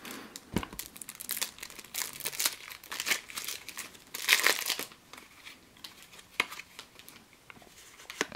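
Plastic shrink wrap crinkling and tearing in irregular bursts as it is pulled off a deck of game cards.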